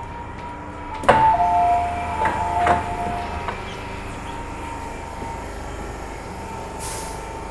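Metro-Cammell M-Train's two-tone door-closing chime, alternating high and low beeps for about two and a half seconds while the sliding doors clunk shut, signalling that the train is about to depart. After it comes a steady electrical whine over the car's rumble, with a short hiss near the end.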